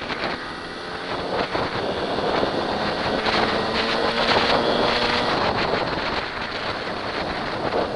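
Dirt bike engine running hard as it is ridden along a trail, with heavy wind noise on the on-bike microphone. The revs hold steady for a couple of seconds in the middle.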